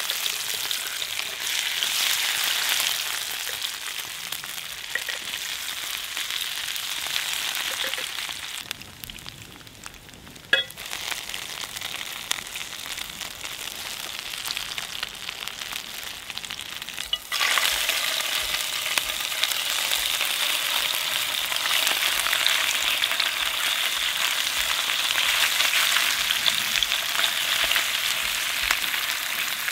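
Diced potatoes frying in oil in a non-stick pan over a campfire, a steady sizzle. There is one sharp knock near the middle, and the sizzle turns suddenly louder a little past halfway.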